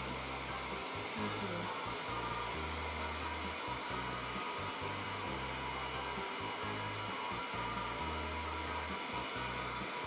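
Handheld hair dryer blowing on a kitten's fur: a steady rush of air with a faint whine.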